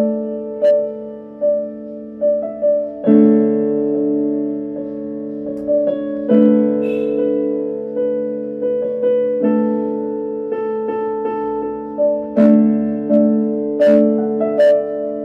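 Slow instrumental background music: keyboard notes picking out a melody over held chords.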